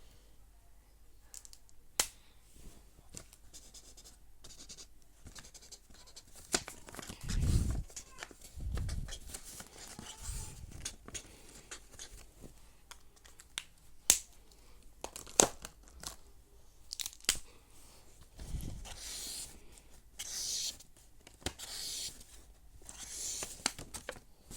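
Felt-tip marker scratching across paper in short strokes, most busily near the end, with scattered sharp clicks and a few low thumps.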